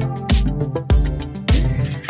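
Background music with a steady beat, a little under two beats a second, over sustained pitched notes.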